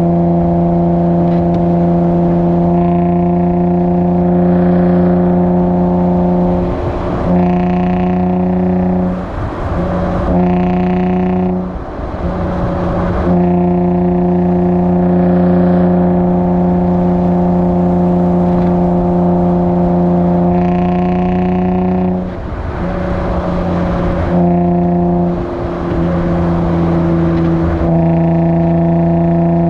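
Infiniti G35's 3.5-litre V6 through a Motordyne Shockwave exhaust with ART pipes, heard close at the tailpipe: a steady exhaust drone at a held speed. Several times (about 7 seconds in, from 9 to 12 seconds, and from 22 to 26 seconds) the drone drops away into rough crackling, the tune's pops-and-bangs feature on lift-off, before it picks up again.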